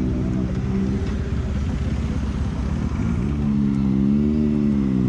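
Motorcycle engine running at low revs while the bike moves off onto the road. The engine tone is steady at first, turns to a rougher low rumble, and from about three seconds in comes back stronger, rising and falling with the throttle.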